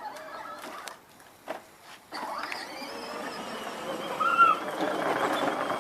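Power Wheels ride-on toy car's electric motor and plastic wheels rolling over dirt, starting suddenly about two seconds in and growing steadily louder as it comes closer.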